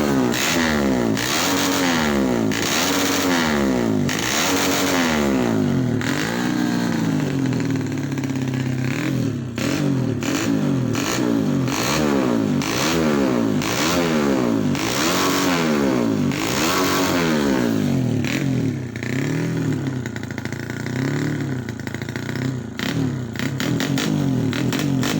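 Yamaha Vega R four-stroke single-cylinder motorcycle engine, fitted with a Yamaha Mio J cylinder head with 26/21 mm valves and a 56 mm piston, revved up and down about once a second. This is its first run with the new head and it is not yet tuned.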